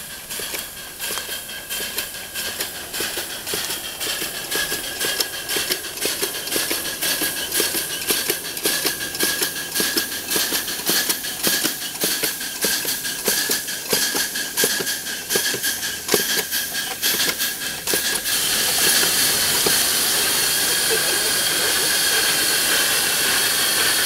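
Small ride-on live steam locomotive running along the track, its exhaust beating in a quick, regular rhythm over a steady high tone. About eighteen seconds in the beats stop and give way to a steady hiss of steam.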